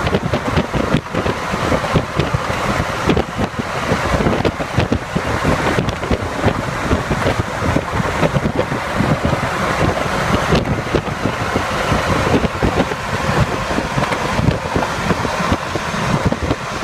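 Wind buffeting the microphone: a steady rushing noise with constant low, gusty thumps.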